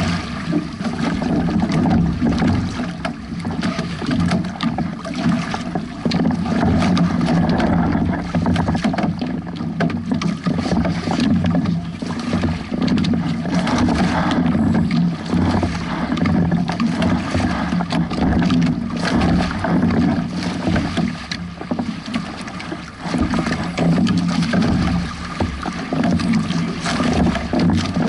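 Water splashing and rushing against a Hobie 16 catamaran's hull as it sails through waves: a steady wash that swells and dips with the chop.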